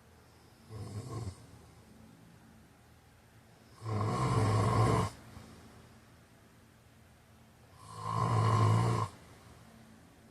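A man snoring in his sleep: three snores about four seconds apart, the first short and soft, the next two louder and each about a second long.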